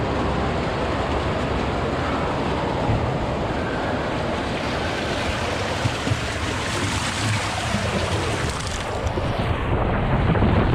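Water rushing and spraying along an enclosed body water slide as a rider slides down it feet first, with rushing wind on the worn camera's microphone. The noise is steady and grows louder near the end.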